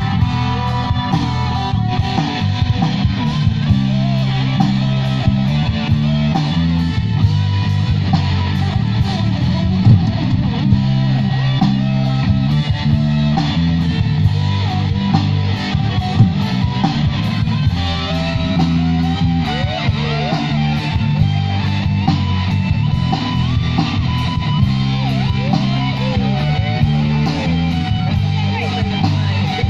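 A band playing amplified music at a sound check: guitar over held bass notes with a steady beat.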